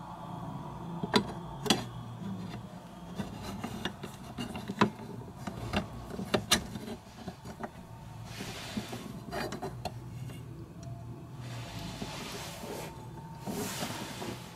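Handling and fitting the metal latch parts of a motorcycle top case lock: a string of sharp clicks and light knocks of small metal and plastic parts, then three short spells of rubbing and scraping in the second half.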